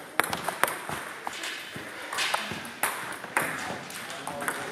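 Table tennis balls clicking off bats and tables in irregular single hits, a sharp ball-on-bat or ball-on-table sound from the matches in play.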